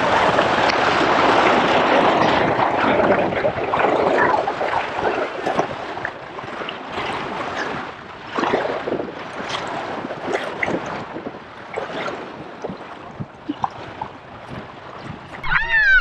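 River water rushing and splashing around a whitewater raft, loudest for the first few seconds, then lower with scattered sharp splashes.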